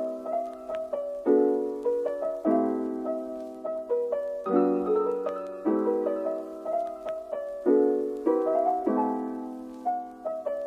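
Background piano music, with chords struck about once a second and left to fade.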